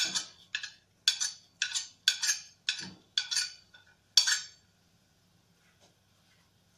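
A metal spoon clinking against a plate and a steel kadai about ten times in quick, uneven succession as cumin seeds are scraped into the pan. The clinks stop after about four and a half seconds, leaving a faint low hum.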